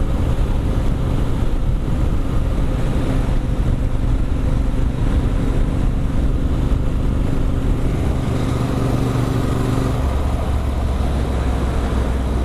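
Adventure motorcycle with an Arrow aftermarket exhaust running at steady road speed under the rider. Its engine note drops to a lower pitch about ten seconds in.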